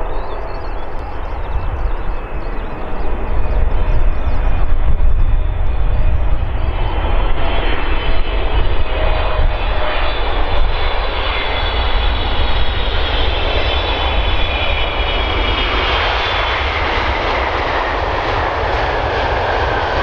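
Boeing 777 jet engines on final approach and landing: a steady jet whine and rumble that is loudest as the airliner passes close, about five seconds in. Its whining tones slide down in pitch over the last few seconds.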